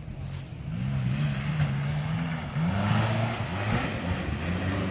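Off-road 4x4's engine revving hard under load as it climbs a steep dirt slope, its pitch rising and falling repeatedly; it grows louder about a second in.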